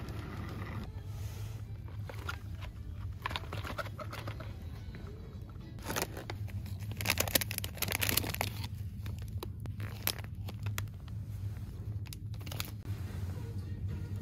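Rustling and crinkling of packaging or bags being handled, with irregular crackles that are loudest from about six to eight and a half seconds in, over a steady low hum.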